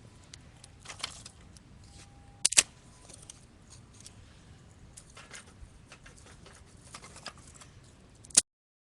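Wood campfire crackling with scattered small pops and snaps. A sharp double click about two and a half seconds in and another sharp click just before the sound cuts off are the loudest sounds.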